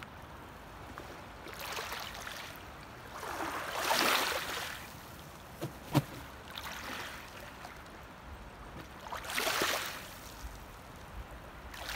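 Loch water lapping and splashing at a shingle shore where mute swans are dabbling. It comes in several swells a couple of seconds apart, with two short sharp knocks about halfway through.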